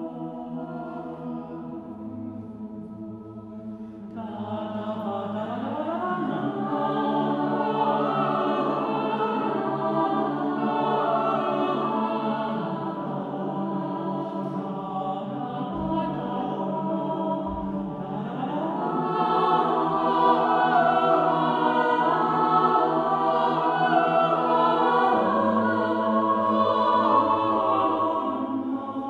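Mixed choir of women's and men's voices singing a cappella in a reverberant church. The singing is soft and thin at first; the full choir comes in about four seconds in and grows louder again around nineteen seconds.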